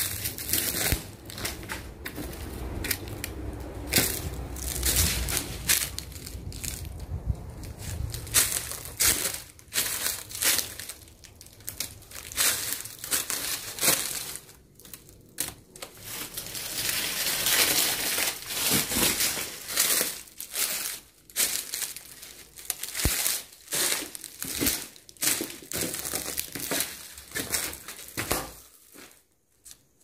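Footsteps crunching through dry leaves and debris: an irregular run of crackling, crushing steps that dies away near the end.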